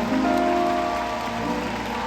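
Instrumental outro of a ballad played live, with held chords over a steady hiss of audience applause.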